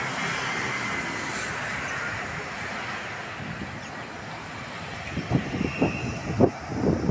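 Steady street traffic noise. In the last two seconds a quick irregular run of sharp knocks or bumps rises above it.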